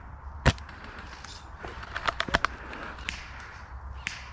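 Scattered single airsoft shots and BB hits heard as sharp cracks. The loudest comes about half a second in, two more follow close together just after two seconds, and fainter ones come later.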